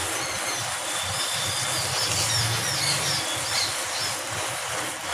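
Hundreds of massed matchsticks burning in one large fire, a steady rushing hiss with a low rumble. Short high chirps come and go over it for the first four seconds or so.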